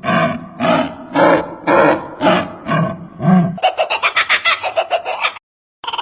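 A bird giving an odd, harsh repeated call, about two calls a second, then switching to a fast rattling trill of about ten notes a second that cuts off suddenly.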